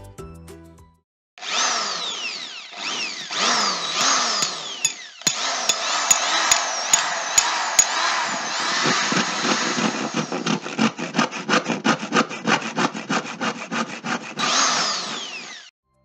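A hand or power tool cutting or scraping through material in repeated strokes, with falling sweeps in pitch in the first half and a steady rhythm of about four strokes a second later on. It cuts off suddenly near the end.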